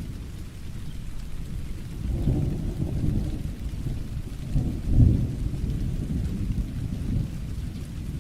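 Thunderstorm: steady rain with low rolling thunder that swells about two seconds in and again, loudest, about five seconds in.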